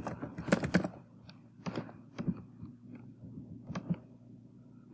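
Keystrokes on a computer keyboard as a password is typed: a quick run of key presses in the first second, then scattered single clicks.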